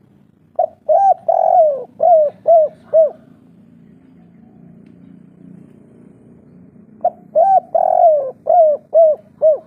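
Spotted dove cooing: two phrases a few seconds apart, each a run of coos that ends in three short, clipped notes, the 'kuk 3' song type. A faint low hum lies under it.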